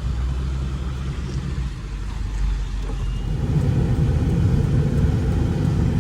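A vehicle engine running steadily, growing louder about three and a half seconds in.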